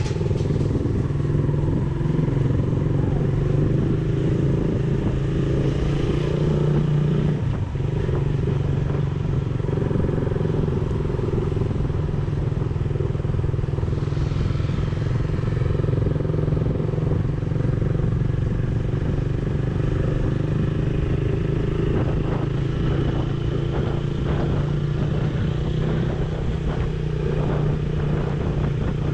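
Motorcycle engine running steadily at cruising speed, heard from the rider's own bike along with wind and road noise. The engine note dips briefly about seven and a half seconds in, and there are a few light clicks near the end.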